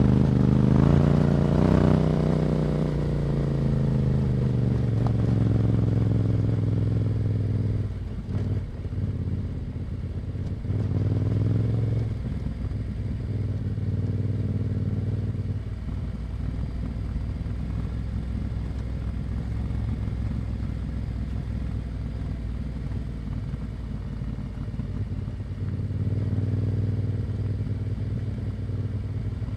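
Yamaha Ténéré 700's parallel-twin engine through an Akrapovic exhaust, heard from the rider's seat: pulling hard at first, then the pitch falling as it slows, with a brief dip about eight seconds in. It then runs steadily at lower revs and picks up again near the end.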